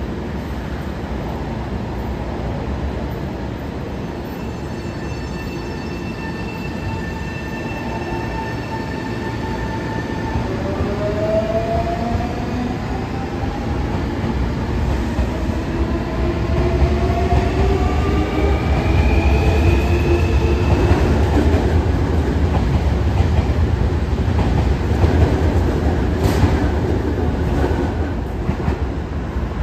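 Senboku Rapid Railway 9300 series electric train pulling out of the station. Its motor drive gives a steady whine of several tones, which then rise in pitch together as the train accelerates. A low rumble of wheels and motors grows louder as the train speeds up, and there is a sharp click near the end.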